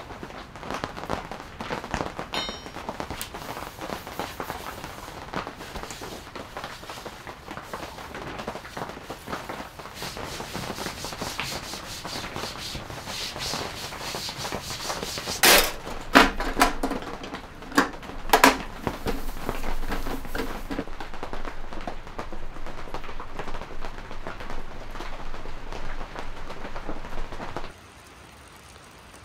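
Camp-kitchen cleanup: a paper towel wiping and rubbing over a tabletop, with handling clatter and small clicks throughout. A few loud knocks come a little past halfway. Near the end the sound drops to a quieter steady hiss.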